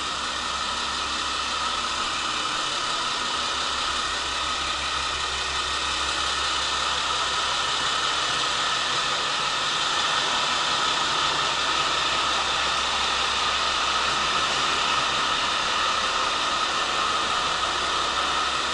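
JR West KiHa 47 diesel railcar idling at the platform: a steady low engine hum under an even hiss.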